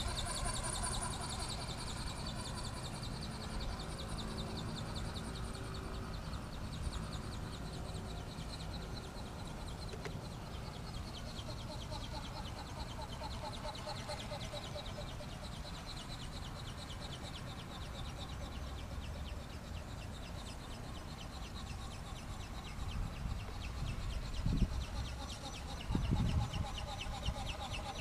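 Model airplane's motor and propeller buzzing as it flies overhead, its pitch sliding up and down as it passes, with a couple of low thumps near the end.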